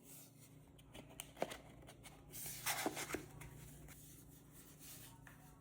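Faint handling noises from a small plastic handheld vacuum: a few light clicks and rustles, busiest around a second and a half to three seconds in, as its parts are handled and fitted together. The motor is not running.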